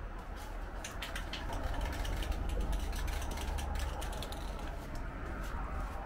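Aerosol spray-paint can being shaken, its mixing ball rattling in a quick irregular run of clicks that thins out after about four seconds, over a low steady rumble.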